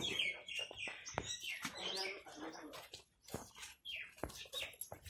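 Small birds chirping and twittering in quick, short calls, many overlapping, with a few sharp clicks among them.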